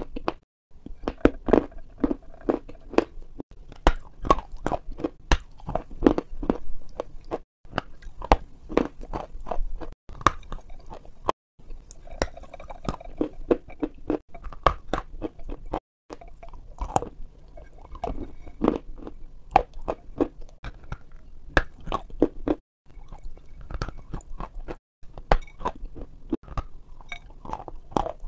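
Close-miked crisp crunching and chewing of a crunchy white dessert, with rapid crackling bites in runs broken by short pauses.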